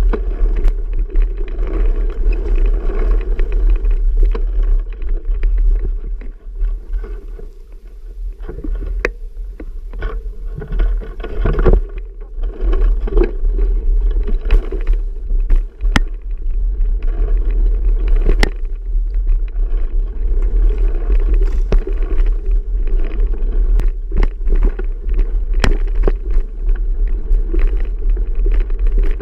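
Wind buffeting the microphone of a camera riding along on a moving bicycle, a steady deep rumble with many sharp knocks and clicks from the bike jolting over the trail.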